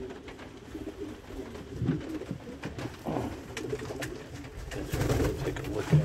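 Domestic pigeons cooing in the loft, low and repeated, with a few light knocks from the wooden nest boxes being handled.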